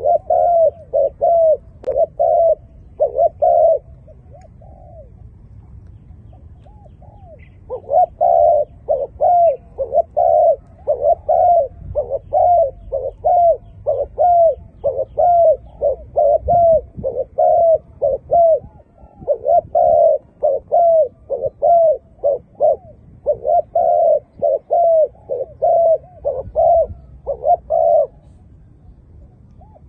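A dove cooing in runs of short, arching notes, about two a second: a brief run, a pause of a few seconds, then a long unbroken series.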